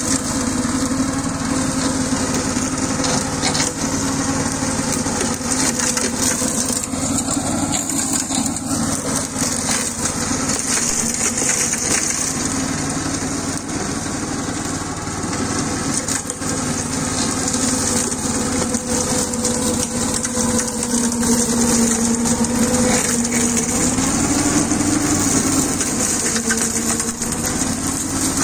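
Swaraj mini tractor's diesel engine running steadily under load while its rear-mounted chain slasher spins, cutting through tall weeds. The engine note wavers a little in pitch as the load changes.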